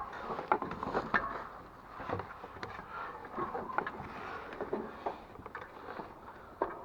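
Scattered knocks, taps and rustling, as of someone moving about and handling things, with no steady rhythm.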